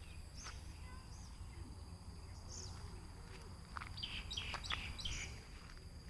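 Small birds chirping: scattered short high chirps, then a quick run of several falling chirps about four seconds in, over a faint steady high-pitched tone and a low rumble.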